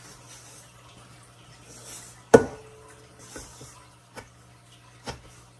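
Kitchen utensils scraping and stirring thick cookie dough in a stainless steel mixing bowl, with one sharp clank against the bowl about two seconds in that rings briefly, and two lighter knocks near the end.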